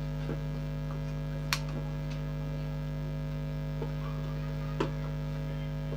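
Steady electrical mains hum, with a few light clicks from wires and fittings being handled; the sharpest click comes about a second and a half in.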